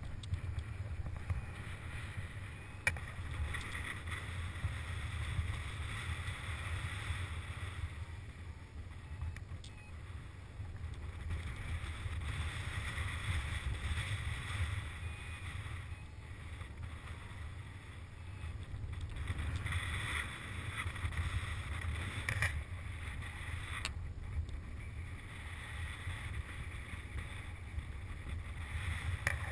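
Wind rushing over a GoPro Hero2's microphone in paraglider flight: a steady low rumble with a hissing rush that swells and fades every few seconds, and a few sharp clicks.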